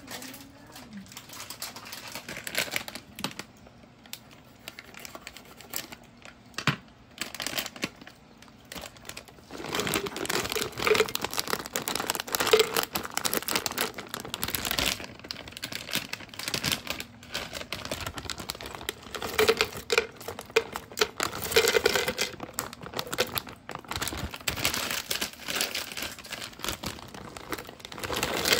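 Plastic bag of ice cubes crinkling as it is handled and opened, with ice cubes clattering into a plastic cup. The first seconds are quieter with a few light clicks; the crinkling gets louder and denser about ten seconds in.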